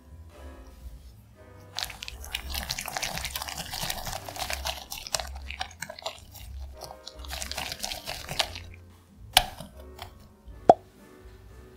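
Wire whisk beating egg into creamed butter in a glass bowl: two long stretches of wet, rapid scraping and squelching against the glass, then two sharp knocks near the end, the second ringing briefly. Soft background music underneath.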